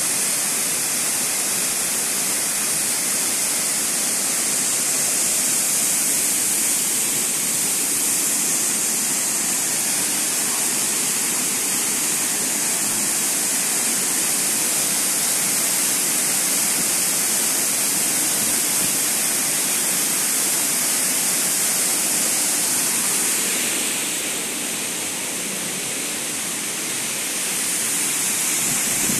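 Waterfall pouring over a rock ledge into a shallow plunge pool, a steady rush of falling and churning water. It dips a little for a few seconds near the end, then comes back up.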